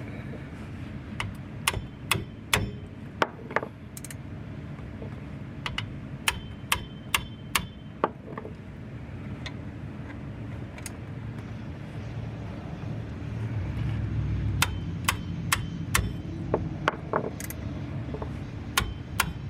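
Sharp metallic clicks and clinks in short runs of two to five, each ringing briefly. This is hand tools working on the bolts of a new rear wheel hub assembly as it is tightened down.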